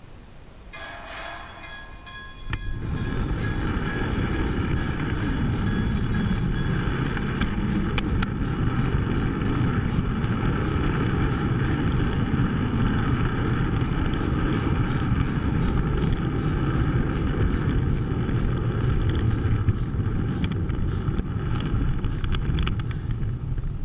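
O-gauge model train running on its track: loud rolling rumble of wheels on the rails that sets in a couple of seconds in as the train gets moving, over a steady humming tone with several pitches.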